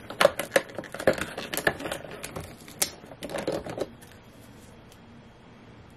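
Small packaging being handled and opened by hand: rapid, irregular clicks and crinkles that stop about four seconds in.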